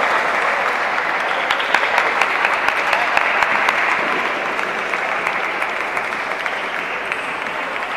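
Spectators clapping with crowd noise in a large, echoing hall, slowly dying away.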